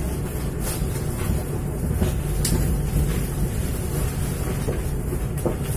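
Steady low rumble of a local passenger train running slowly, heard from inside the carriage, with a few sharp clicks from the wheels and coach.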